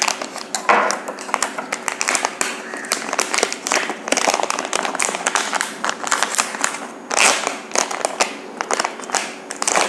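Crinkling plastic of an anti-static bag as hands handle it and pull an Arduino Uno board out: a dense crackle with a louder burst about seven seconds in.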